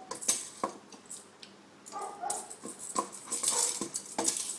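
Wooden spoon stirring in a stainless steel pot, knocking and scraping against the metal sides with irregular clicks and clatters.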